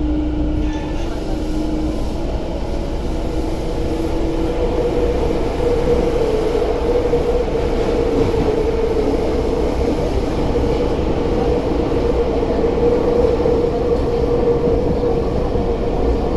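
Tokyo Metro 10000 series subway train heard from inside the car as it runs through a tunnel: a steady, loud rumble of wheels on rail, with a steady hum that grows stronger about four seconds in.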